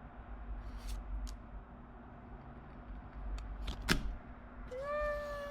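Trading cards being handled: a few light clicks and taps over a low rumble of handling noise. Near the end a person begins humming a steady held note.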